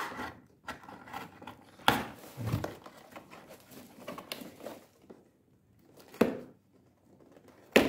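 Cardboard toy box and a plastic action figure being handled: scraping and rustling of the packaging, with a few sharp knocks, the loudest near the end.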